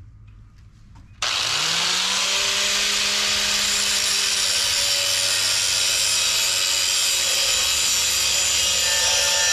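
Electric angle grinder switched on about a second in, its motor whine rising briefly as it spins up, then running steadily and loudly while grinding down spots on a rusty quarter-inch steel U-channel to prepare them for welding.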